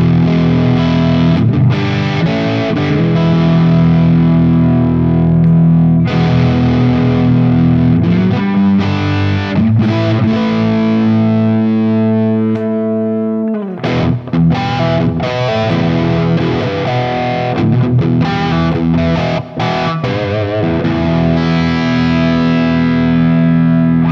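Heritage H-150 solid-body electric guitar with Seymour Duncan '59 humbuckers, played with a distorted tone: sustained chords and riffs. About halfway through, one chord rings for several seconds and is cut off sharply, then the playing turns choppy and stop-start.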